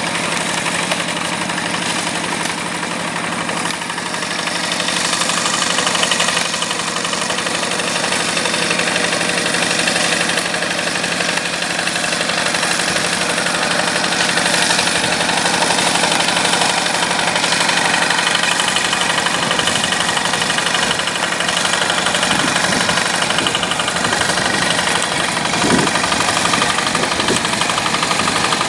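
Yanmar single-cylinder diesel engine of a two-wheel paddy-field hand tractor running steadily.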